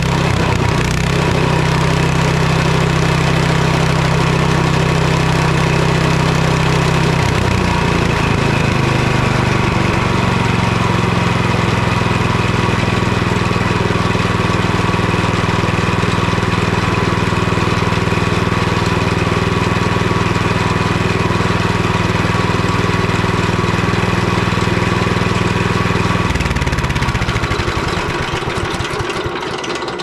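A 301cc single-cylinder OHV Honda GX-clone engine on a DR stump grinder runs steadily on its first run after a carburetor replacement. It is burning off the fuel that had flooded its crankcase. Its note shifts about a quarter of the way in, and it winds down near the end.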